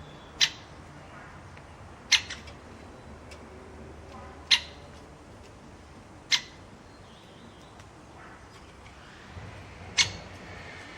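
A bird giving short, harsh squawks, five in all, about two seconds apart with one longer pause, over a faint steady background.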